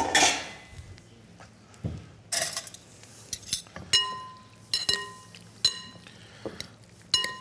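Metal utensils tossing a salad of shredded Brussels sprouts and green beans in a glass bowl. The utensils scrape and clink against the glass; four of the strikes in the second half ring on with a clear, bell-like tone.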